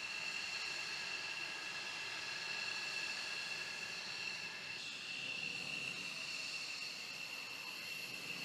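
F-16 fighter jet's turbofan engine whining at taxi power as the jet rolls past: a steady high whine over a low rumble, its tone shifting slightly about five seconds in.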